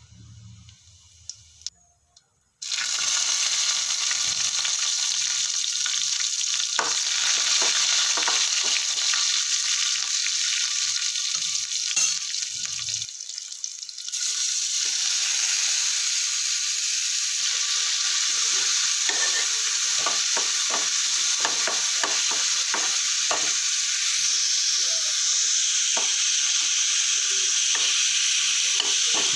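A tempering of spices and green chillies frying in hot oil in a kadhai: a loud sizzle that starts suddenly about three seconds in. It drops briefly near the middle, then chopped onion and tomato go in and keep sizzling while a steel spatula stirs and clicks against the pan.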